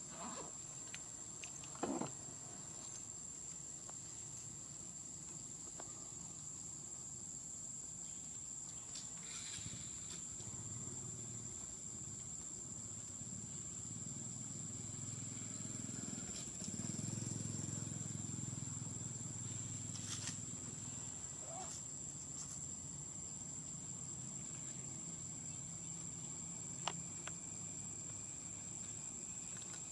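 Insects droning steadily on one high, unbroken note, with a low rumble that swells about halfway through and a few faint clicks.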